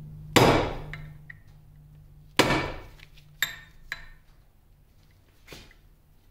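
Hammer striking a pin punch to drive a taper pin out of a cast-iron lathe apron: two hard blows about two seconds apart, then three lighter taps.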